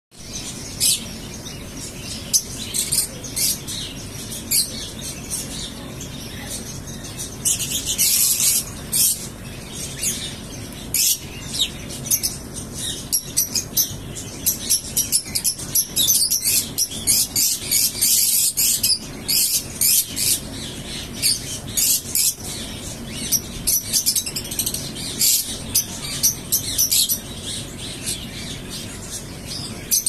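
A flock of Fischer's lovebirds chattering in an aviary: a dense stream of short, shrill, high-pitched chirps, many overlapping, growing busier about eight seconds in.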